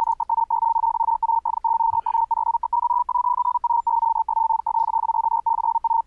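Software sine-wave code practice oscillator (the Bipper synth, keyed by MIDI) sounding Morse code as a steady high-pitched beep, keyed on and off with many brief gaps. The pitch drifts slightly up and back down around the middle.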